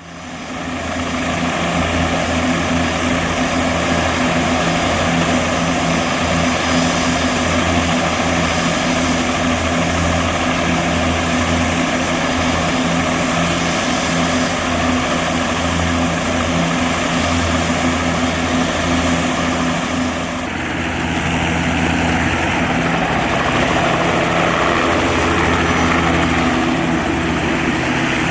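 Bell 206B-3 JetRanger III helicopter running: the steady throb of the rotor under the high whine of its Allison 250 turboshaft engine. About twenty seconds in, the high whine drops away and the sound shifts.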